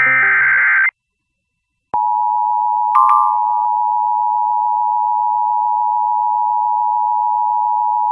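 NOAA Weather Radio alert sequence: a short burst of screechy digital data, then about a second of silence, then the steady two-tone warning alarm tone, loud and unbroken, with a brief extra tone about a second after it comes on. This is the alert that introduces a new severe thunderstorm warning.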